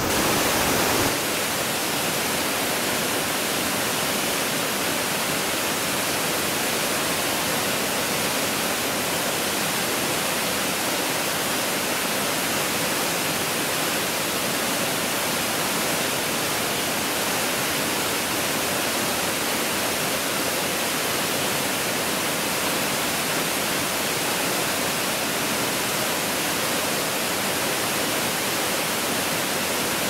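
Steady rushing of a waterfall, Nunobiki Falls, with water pouring down in a dense, even roar. It drops slightly in level and loses some low end about a second in, then holds steady.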